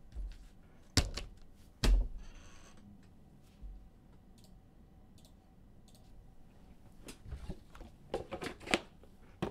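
Trading cards and their packaging being handled on a table: two sharp taps about one and two seconds in, a short rustle right after, then a run of small clicks and taps near the end.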